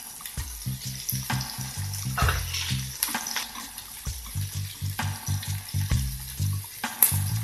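Meat sizzling on a tabletop grill tray, with metal tongs clicking against the tray now and then as pieces are laid down and turned. Background music with a steady bass line plays under it.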